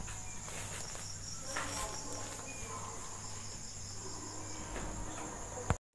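Steady high-pitched pulsing chirr of insects, over a low steady hum. Faint short taps and scrapes come from hands handling the copper wire leads of a ceiling-fan stator coil.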